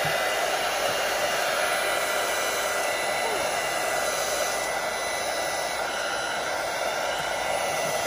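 Small embossing heat gun running steadily: a blower hiss with a faint, steady high whine from its fan motor.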